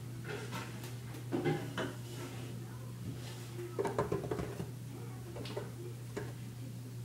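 Scattered light clicks and scuffles of a chinchilla moving about on a tiled floor and knocking against things behind the toilet, busiest about a second and a half in and again around four seconds in, over a steady low hum.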